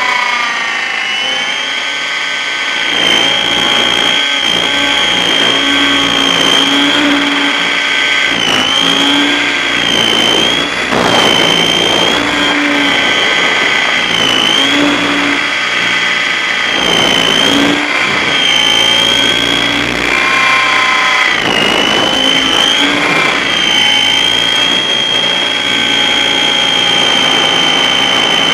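Onboard sound of a radio-controlled model aircraft in flight: a loud, steady high-pitched motor whine with rushing air beneath it. The pitch dips briefly and climbs back several times as the throttle changes.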